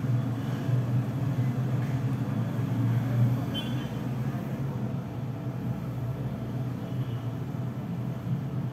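Steady low engine rumble, like nearby traffic or a running engine, with a faint short high beep about three and a half seconds in and another near seven seconds.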